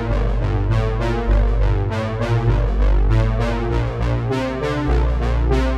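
Background music: a synthesizer and electric-piano track with a steady beat.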